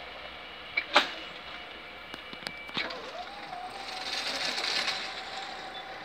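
Level-crossing barrier drive raising the red-and-white booms: a sharp click about a second in and another near three seconds, then an electric motor whine that rises briefly in pitch and holds steady.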